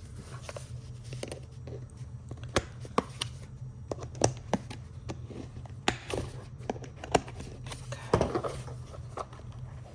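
Hands handling and unpacking small fidget toys and their packaging: scattered sharp clicks and taps with a short rustle near the end, over a steady low hum.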